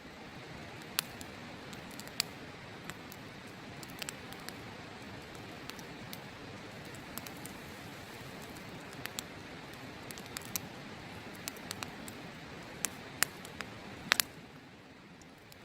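Wood campfire crackling, with scattered sharp pops (a few close together near the end) over a steady rushing hiss that fades just before the end.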